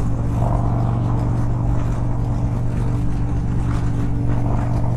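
Harley-Davidson Dyna Street Bob's V-twin engine running at a steady highway cruise, its pitch holding level.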